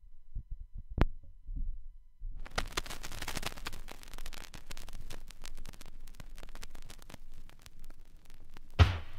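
Stylus of an Audio-Technica AT-LP120 USB turntable set down on a vinyl LP: low handling thumps and a sharp click as it touches down about a second in, then steady crackle and pops from the lead-in groove. Near the end the record's music starts with a heavy drum hit.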